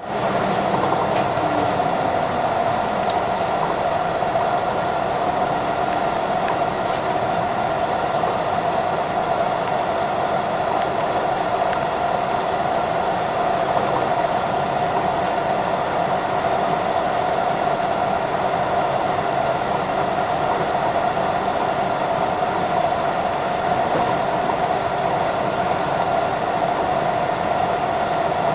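Inside the front of a Chizu Express HOT7000-series diesel railcar running at speed: a steady running drone of engine, transmission and wheels on the rails, with a strong constant hum and a few faint clicks.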